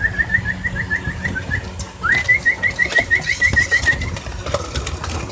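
A person whistling two long warbling calls, each opening with a rising swoop and then trilling quickly on one high note; a call that makes the puppies expect to be fed.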